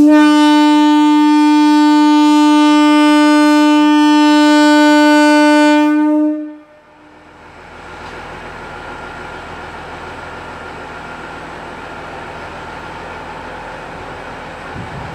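A KiHa 40-series diesel railcar's horn sounds one long steady blast of about six seconds, then stops suddenly. The railcar's diesel engine then comes up to a steady run as it pulls away from the platform.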